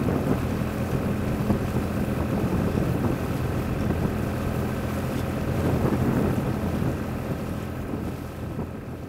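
Small boat under way, its motor humming low and steady under wind rushing on the microphone; the sound fades out over the last couple of seconds.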